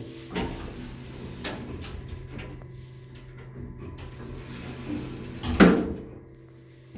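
Elevator machine-room equipment humming steadily, with sharp mechanical clunks; the loudest is about five and a half seconds in.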